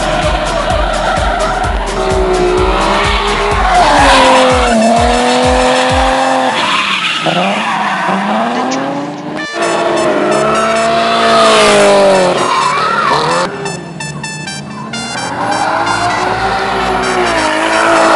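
Drift cars' engines revving hard, the pitch swinging up and down as the throttle is worked, with tyres squealing and skidding as the cars slide.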